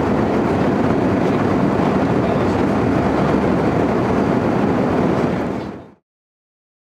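Steady rush of engine and airflow noise inside an Airbus A319's passenger cabin in cruise. It fades out quickly about six seconds in.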